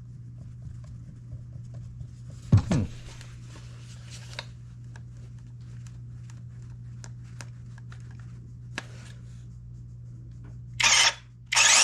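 Light handling clicks and rustles over a low steady hum, then near the end two short bursts of a battery chainsaw's electric motor and chain spinning, triggered briefly to spread bar oil along the chain.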